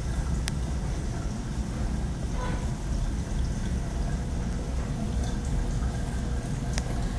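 Steady trickling and splashing of water from a saltwater reef aquarium's circulation and filtration, over a low rumble, with two faint clicks, about half a second in and near the end.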